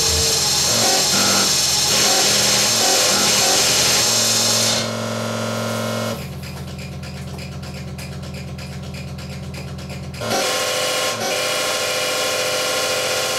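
Electronic noise music: a dense, harsh hissing texture that gives way about five seconds in to a quieter, steady low drone, then comes back loud and noisy about ten seconds in.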